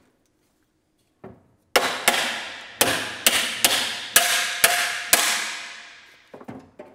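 A hammer tapping a metal end cap into the end of a hollow aluminium damper blade: about eight sharp blows half a second apart, each leaving the blade ringing, then a few lighter knocks near the end.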